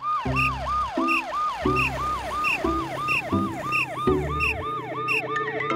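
Cartoon police car siren: a fast yelping wail whose pitch rises and falls about three times a second, without a break.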